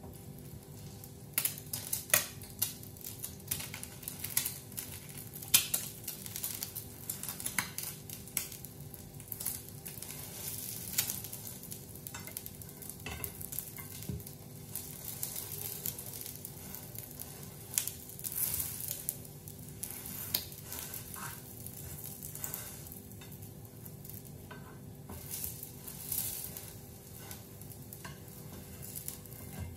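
Egg frying in hot oil in a pan, sizzling with irregular sharp crackles and pops from spattering oil, which start about a second in.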